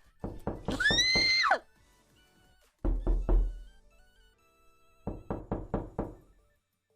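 Door-knocking sound effect: three bursts of quick knocks, about four to six raps each, with a short high-pitched squeak over the first burst. Faint background music runs underneath.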